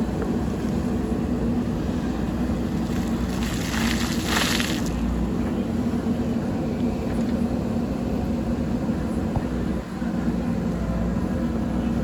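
Diesel engine of a JCB backhoe loader running steadily under work, with a brief hissing rush about three and a half seconds in.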